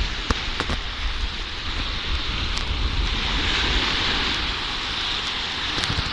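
Strong wind buffeting the microphone in a low, uneven rumble over a steady rushing hiss of surf on the shore, with a few sharp clicks.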